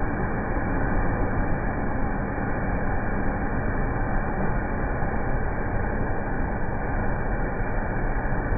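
Waterfall rushing: a steady, even roar of falling water that is dull, with no high hiss.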